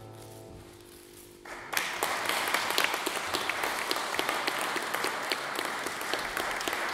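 The last acoustic guitar chord of a song ringing out and fading, then a small audience breaking into applause about a second and a half in, clapping steadily.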